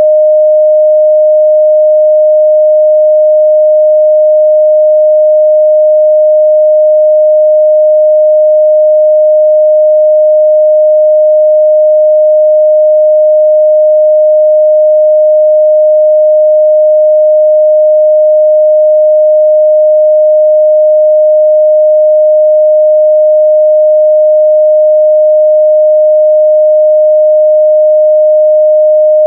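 A steady 614 Hz sine-wave test tone, one pure, unchanging pitch held at a constant loud level.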